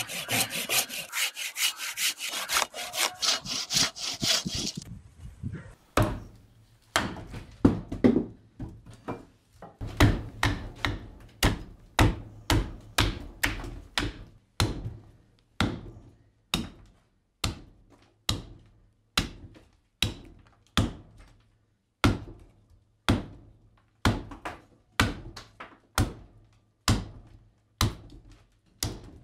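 A hand pruning saw cutting through a green walnut limb with quick back-and-forth strokes for about five seconds. Then a hatchet chopping and splitting the green walnut on a wooden chopping block, with sharp blows about once a second.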